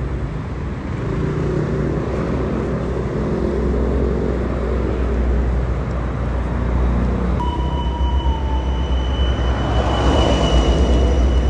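Motorbikes and other road traffic running on a street, with a deep rumble throughout. A steady high-pitched tone starts about seven and a half seconds in and holds to the end.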